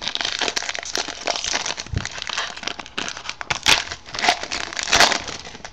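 Plastic wrapping on a trading-card box crinkling and tearing as it is opened, a continuous crackle with a few louder crackles in the second half.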